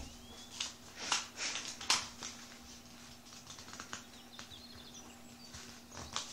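A sheet of white paper being folded and creased by hand: a run of crisp rustles and crackles as fingers press the folds flat, busiest in the first two seconds and sparser after.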